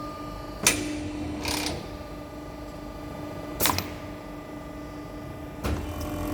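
CNC aluminium corner crimping machine running a crimp cycle: three sharp mechanical clunks about 0.7, 3.7 and 5.7 seconds in, the first followed by a short hiss, over a steady motor hum.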